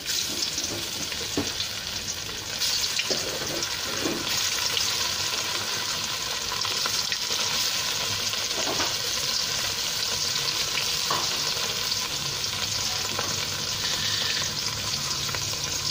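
Salted bulu ayam fish frying in hot oil in a wok: a steady sizzle that gets louder about two and a half seconds in as more fish go into the oil, then holds.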